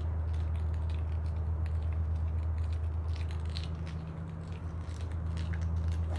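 A steady low hum with a faint overtone above it, and light clicks and crackles scattered through it.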